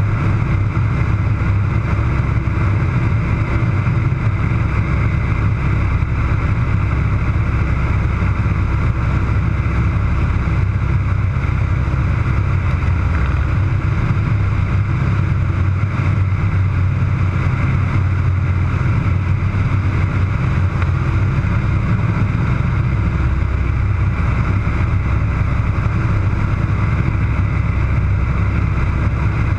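Air Tractor AT-301 crop duster's Pratt & Whitney R-1340 nine-cylinder radial engine and propeller, heard from inside the cockpit, running at a steady, even drone in flight.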